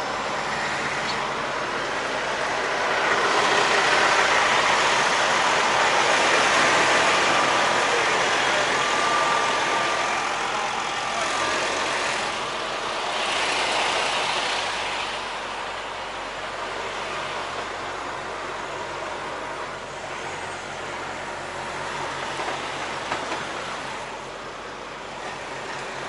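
Heavy truck and road traffic noise: a steady engine hum under a broad hiss. The hiss swells louder for several seconds starting about three seconds in, and again around the middle.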